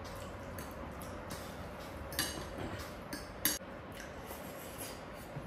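Metal forks clinking against ceramic bowls during a meal: a few short, light clinks, the sharpest about two seconds and three and a half seconds in.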